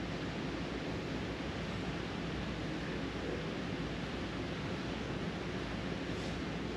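A steady, even hiss of noise with nothing else standing out.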